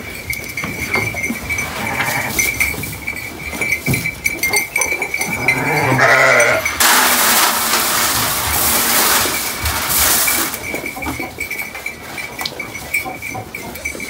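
Sheep feed poured from a plastic bucket into a metal feeder: a rushing hiss of grain lasting about three and a half seconds near the middle. A sheep bleats briefly just before the pour, with knocks and shuffling in the straw around it.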